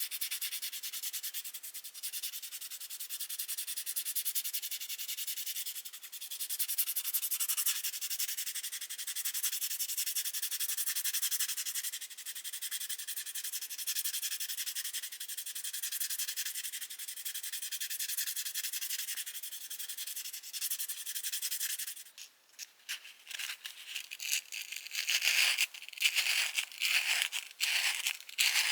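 320-grit sandpaper rubbing back and forth over a plastic screwdriver handle to take down a moulding seam: a steady, fine scratching hiss. About 22 seconds in it breaks off, then goes on as shorter, separate strokes.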